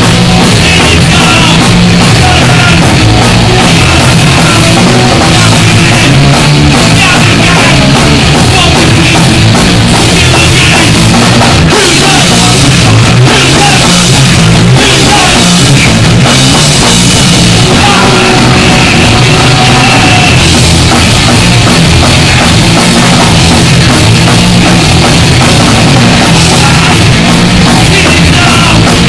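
Punk band playing live and loud: distorted electric guitar, bass guitar and drum kit.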